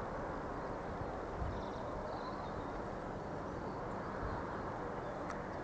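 Steady outdoor rushing noise, with a few low gusts of wind buffeting the microphone.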